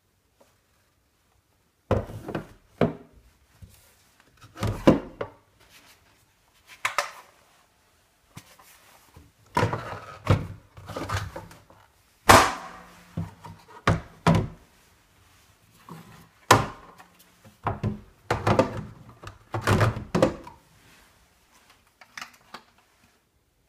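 Hollow plastic parts of a Little Tikes Giraffe Scooter ride-on toy being handled and fitted together: a string of irregular knocks and thunks with rubbing between them, starting about two seconds in.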